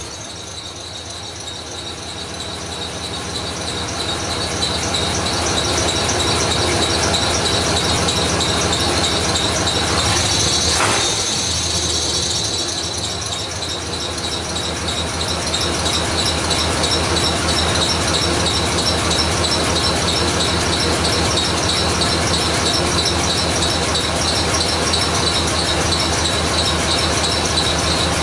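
Truck engine running steadily with a constant high-pitched squeal over it, briefly revved about ten seconds in.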